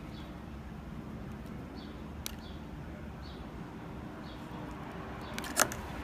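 Two sharp clicks from needle-nose pliers stripping insulation off a wire: one about two seconds in and a louder one near the end. Under them is a steady low background hum with faint bird chirps.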